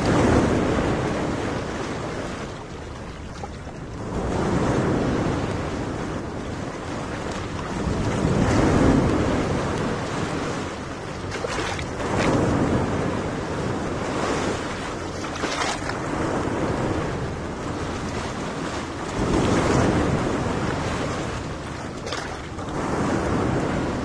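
Gentle surf washing onto a sandy beach, swelling and fading every few seconds, mixed with wind on the microphone.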